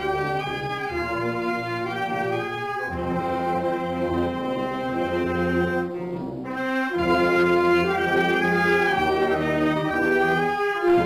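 Village wind band of brass instruments and saxophone playing while marching in procession, in long held chords with brief breaks between phrases about three and seven seconds in.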